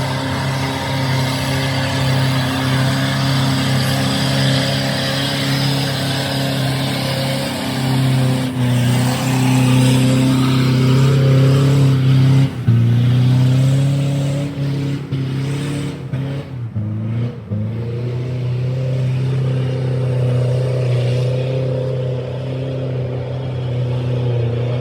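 Mitsubishi Pajero Sport's turbocharged engine working hard under load up a steep muddy slope, with an odd-sounding turbo. The engine note runs steadily, then drops and breaks off briefly a little past halfway and several times over the next few seconds before picking up again.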